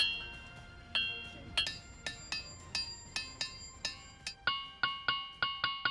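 Iron-rich ringing rocks struck in a series, each blow giving a bell-like ringing tone that dies away quickly. The pitch changes about two seconds in, and again near the end, where the strikes speed up to about three a second.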